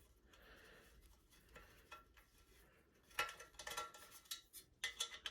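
Screwdriver working at the screws of a ceiling fan's motor housing: faint ticks at first, then from about three seconds in a run of small metallic clicks and scrapes.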